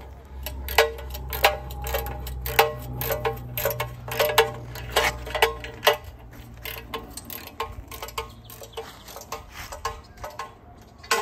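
Ratchet spanner clicking in short irregular bursts, each click with a light metallic ring, as the nut on a 12 mm threaded-rod anchor bolt inside a galvanised steel fence-post base plate is tightened down onto concrete. The clicks grow fainter after about six seconds.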